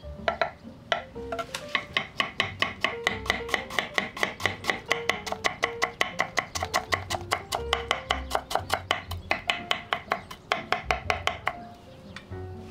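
Chef's knife rapidly mincing garlic on a wooden cutting board: a steady run of about five sharp knocks a second that stops near the end. Light background music plays underneath.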